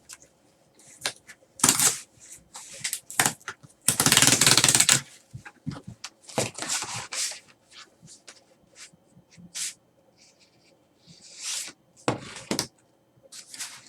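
Trading-card box packaging being handled and opened by hand: a series of light clicks, scrapes and rustles, with one longer, louder rustle lasting about a second roughly four seconds in.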